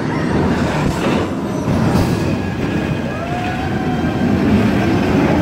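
Whizzer steel roller coaster car running along its track, with a wheel squeal about three seconds in.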